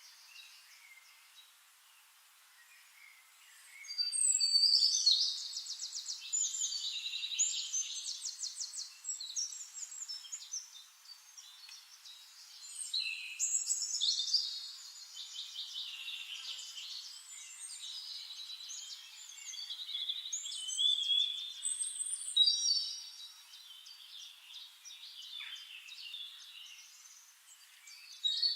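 A songbird singing long, complex phrases full of rapid trills, starting about four seconds in and recurring roughly every eight seconds, with quieter chirps in between.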